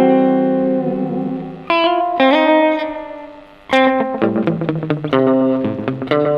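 Electric guitar played through a Pedaltank Time Capsule 2 analog delay pedal: a ringing chord fades, single chords are struck, then a quick run of repeated notes near the end, with the delay's echoes set close together.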